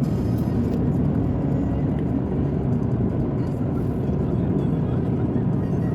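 Steady low rumble of road-vehicle noise, unbroken and even.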